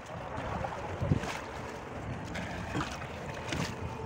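Feet wading through shallow river water, with the water sloshing and a few irregular splashes as legs push through it.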